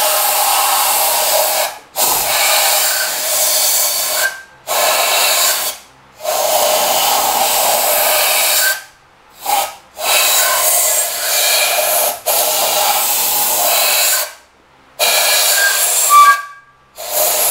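Compressed-air blow gun blasting in about eight stop-start bursts of a second or two each, blowing dirt and oil out of the grooves in the engine block's deck face.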